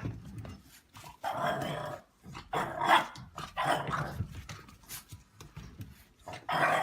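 A dog growling and barking in several short bursts.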